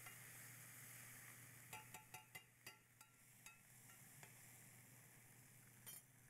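Faint sizzle of scallions, curry and broth cooking in a stainless steel skillet, with a metal spoon clinking against the pan in a quick run of about six taps between two and three and a half seconds in, and once more near the end.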